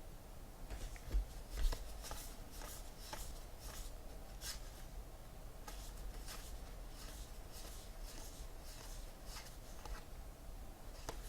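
Baseball trading cards being flipped through by hand: a faint, irregular run of soft swishes as card stock slides past card stock, one every half second or so, with two low thumps a little over a second in.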